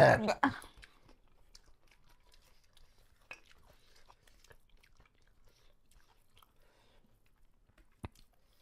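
Quiet sounds of eating by hand from steel plates: fingers working rice against the metal, faint chewing and a few small clicks. A short, loud burst of voice comes right at the start.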